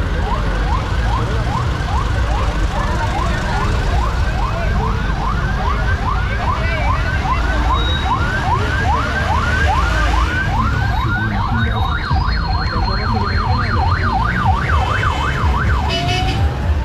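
Electronic vehicle siren sounding a fast repeated rising whoop, about three a second, which changes to a quicker up-and-down warble past the middle and then to a slow rising wail near the end, over a steady low rumble.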